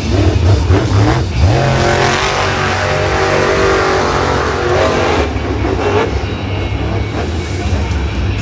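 Max-D monster truck's supercharged V8 engine revving and running hard under throttle, its pitch gliding up and down, over a constant deep rumble.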